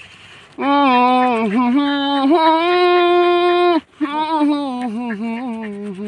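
A lone voice singing a slow tune in long held notes that waver in pitch, with no accompaniment, starting about half a second in and pausing briefly a little before four seconds.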